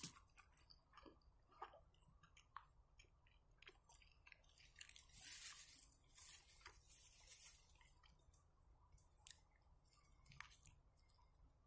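Faint mouth sounds of a man biting and chewing a fried meat-filled belyash: scattered soft, wet clicks. A brief soft rustle comes in the middle.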